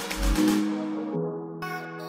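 Background electronic music: the drum beat and bass stop about half a second in, leaving held synth chords that change about a second in.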